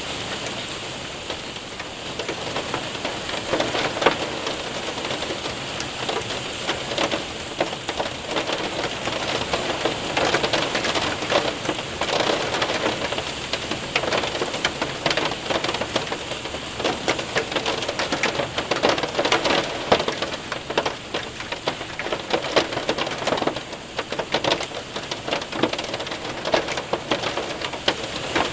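Hail and heavy rain striking a window and roof, a dense steady patter with many sharp individual ticks of hailstones.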